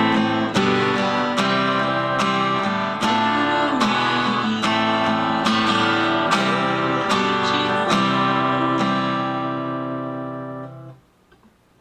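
Acoustic guitar strummed through a chord progression as a demonstration, a strum roughly every half second. The last chord is left to ring and fades out near the end.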